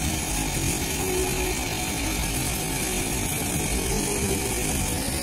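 Lampworking gas torch burning steadily as glass rods are melted in its flame: a continuous, even rushing hiss over a low rumble.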